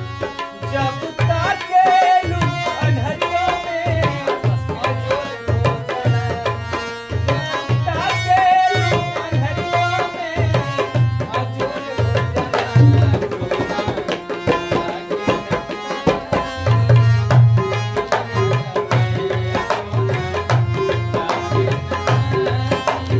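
Bhojpuri song accompaniment: harmonium melody over a steady rhythm from tabla and dholak, the drums' deep bass strokes sounding on an even beat.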